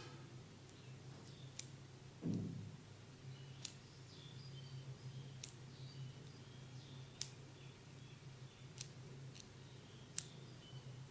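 Light, sharp clicks every one to two seconds, with one dull thump about two seconds in, over a low steady hum.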